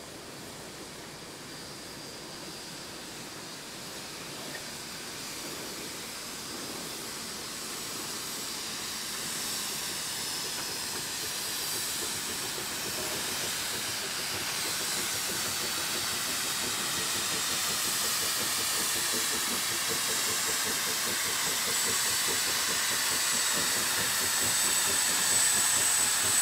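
Three Shay geared steam locomotives working together, their steam hissing steadily and growing louder as they draw near and pass. A thin high whine comes in near the end.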